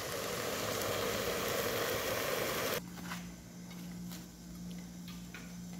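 A steady hiss while seasoning salt is poured into the cooking pot, stopping abruptly a little under three seconds in. Then quieter room tone with a low steady hum and a few faint clicks of a knife cutting a tomato.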